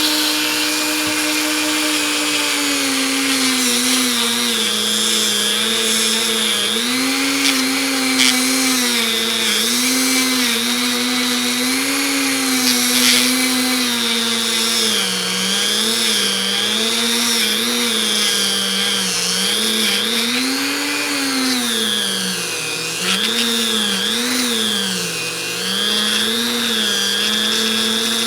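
Dremel rotary tool running continuously at high speed on the pliers, its whine dipping and recovering again and again as it is pressed against the metal and eased off.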